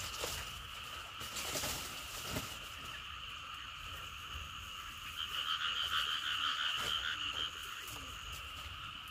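A chorus of frogs calling steadily, swelling louder and more pulsing for a couple of seconds past the middle. A few light rustles of a dry palm frond being handled come near the start.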